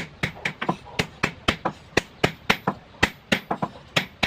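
Hammer blows on steel, about four a second in a slightly uneven rhythm, some with a short metallic ring: forging a knife blade by hand.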